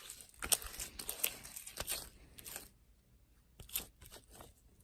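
Borax-activated slime being kneaded and pulled by hand as it activates: irregular sticky crackles and tearing sounds, with a short pause about three seconds in.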